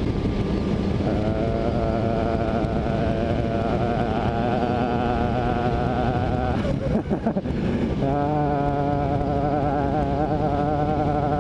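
Motorcycle engine running under way, its note wavering over steady wind and road noise. About seven seconds in the engine note slides and breaks briefly, as with a shift or a roll-off of the throttle, then settles again at a lower pitch.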